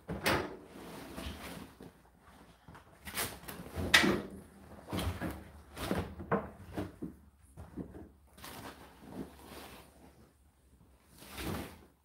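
Clothes being stuffed by hand into the drum of an Indesit condenser tumble dryer: irregular rustling of fabric with soft knocks against the drum and door opening, the sharpest knock about four seconds in.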